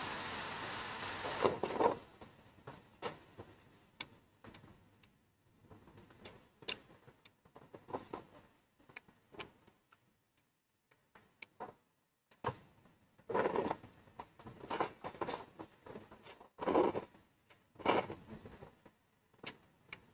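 Close-miked eating sounds from a bowl of bún riêu noodle soup: scattered short clicks and smacks with brief clusters of slurping and chewing. A steady hiss stops about a second and a half in.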